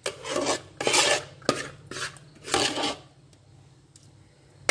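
A metal spoon scraping thick ground masala paste off a metal plate into a pot. There are about four scrapes of metal on metal with a sharp click among them, then quiet for the last second or so.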